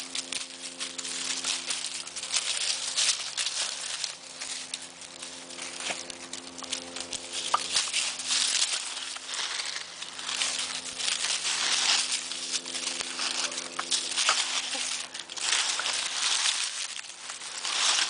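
Dry leaves crackling and rustling as a dog plays in them, in irregular swells of crunching. A faint steady hum runs underneath.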